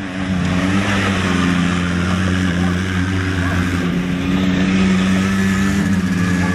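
Small youth ATV's engine running steadily under throttle as the quad rides a dirt track, its pitch holding nearly level with slight wavering.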